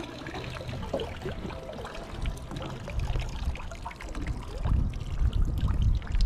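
Seawater dripping and trickling from a landing net lifted out of the sea, under a low rumble that gets louder in the last second and a half.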